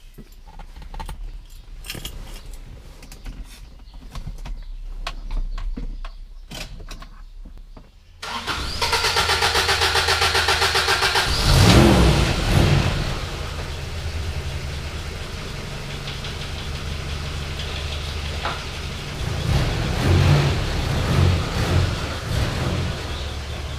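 A Toyota Mighty X pickup's engine cranked on the starter for about three seconds, about eight seconds in, then catching with a rev and settling into a steady idle, revved a few times near the end. Before the start, a few faint clicks and knocks.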